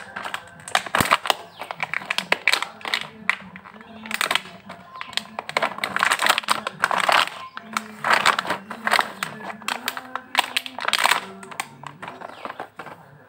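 Gift packaging being handled and unwrapped close to the microphone: repeated crinkling and rustling.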